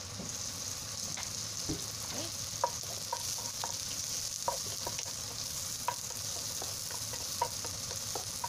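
Garlic, shallot and ginger sizzling in hot oil in a non-stick wok. A steady hiss runs throughout, and a wooden spatula taps and scrapes against the pan at irregular intervals as the aromatics are stirred.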